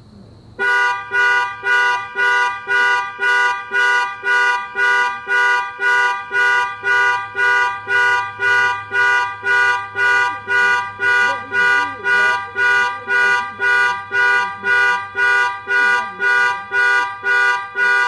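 Car alarm set off with the key fob: the car's horn honks in a steady on-off pulse about twice a second, starting about half a second in.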